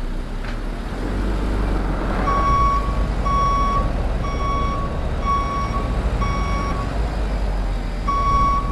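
A vehicle's reversing alarm beeping steadily, about one beep a second, starting about two seconds in, over the low rumble of a running car engine.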